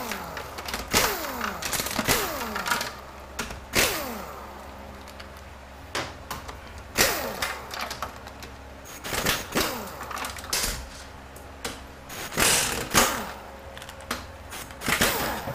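Irregular metallic clanks and clicks of hand tools working on an automatic transmission on a workbench, some knocks leaving a short ringing, over a steady low hum.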